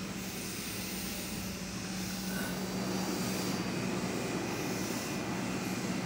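Odakyu 3000-series electric commuter train standing at a platform, its onboard equipment giving a steady low hum over a wash of noise.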